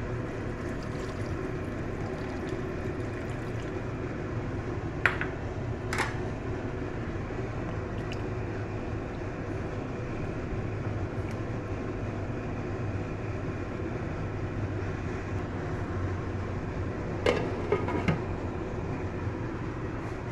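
Water poured from a bowl into a pan of simmering egg and potato curry, then a wooden spatula stirring it. A few sharp knocks of a utensil and the glass lid against the pan, twice in pairs, over a steady low hum.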